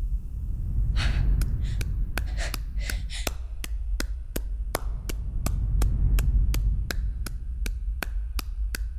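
One person clapping slowly, a little uneven at first and then settling into a steady rhythm of about three claps a second, starting about a second in. A low steady hum lies underneath.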